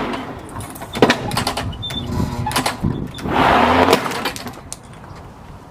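Lawn mower running over a plastic toy, chopping it up with sharp clattering impacts and a louder rush of debris about three and a half seconds in.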